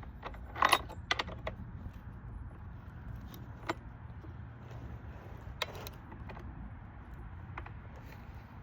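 Metal clinks and rattles of a hand tool and parts on a chainsaw as its bar nuts are tightened back down: a quick cluster of clicks about a second in, then a few single clicks, over a steady low hum.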